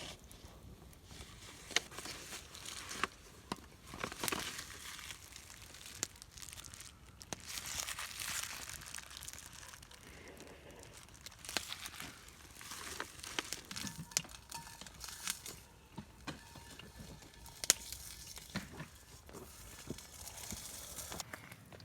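Crinkling and rustling of wrapping being handled, with scattered sharp clicks and some tearing.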